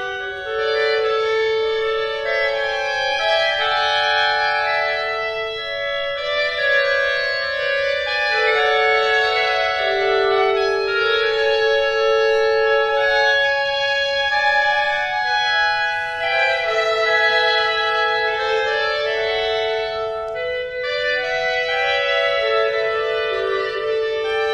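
Clarinet ensemble holding long, overlapping notes. The notes start and stop at staggered times, so the chord shifts slowly and keeps changing.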